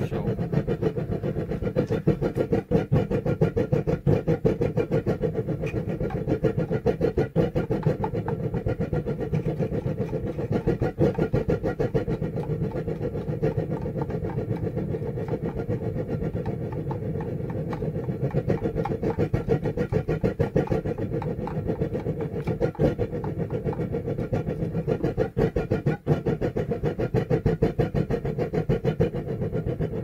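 Homemade gas forge's burner running steadily at full flame: a constant low rushing sound with a fast flutter.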